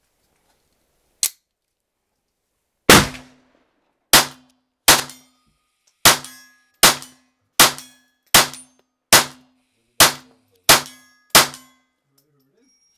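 Hammerli Xesse Sport .22 LR semi-automatic pistol firing eleven shots in a steady string, about one a second. A single small click about a second in comes before the first shot.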